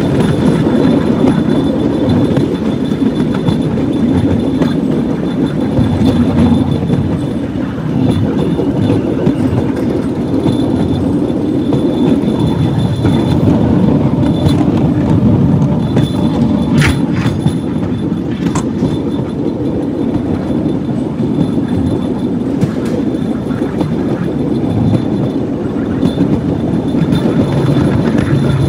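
Small rail cart's steel wheels rolling along a narrow-gauge track, a steady loud rumble with rattling from the rails, with a couple of brief wheel squeals around the middle.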